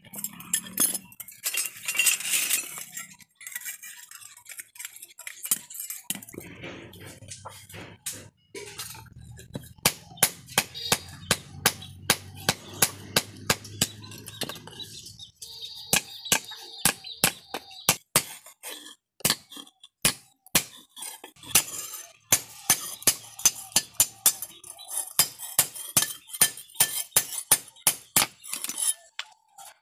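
A hand hammer striking a red-hot steel spade blade on an anvil during forging, a long run of sharp ringing metal clinks about two to three a second.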